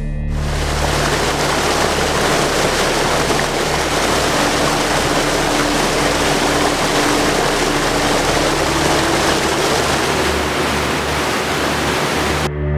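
Steady, loud rush of water that cuts off suddenly near the end, with a faint low drone underneath.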